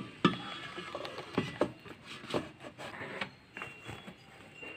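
Irregular knocks and clatter of an air fryer basket being handled and pushed into the air fryer. A thin steady high tone comes in near the end.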